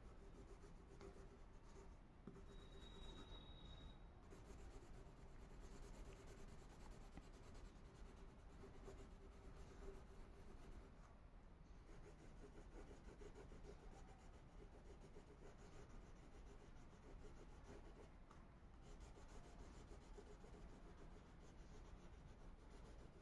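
Faint, steady scratching of a Faber-Castell crayon rubbed over paper as an area is coloured in.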